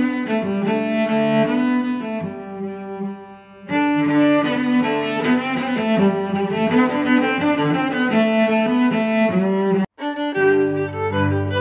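Instrumental background music with a melody over a bass line. It softens briefly about three seconds in, and cuts out for an instant near the end before carrying on.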